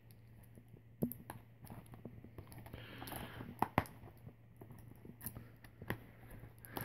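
Faint handling of a plastic DVD case and its packaging: scattered light clicks and knocks with a soft rustle, about seven sharp clicks in all.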